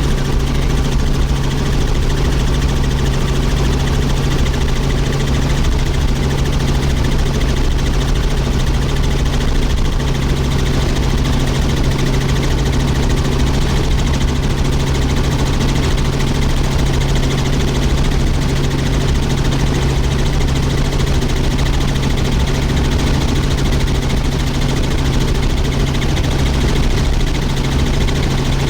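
Helicopter in flight: steady engine and rotor noise with a constant low hum, unchanging throughout.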